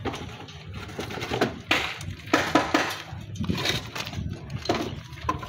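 Pieces of cut natural stone cladding knocking and clinking against each other as they are picked up and shifted in a heap on scaffold boards: an irregular string of sharp knocks, the loudest a cluster about two seconds in, over a low background rumble.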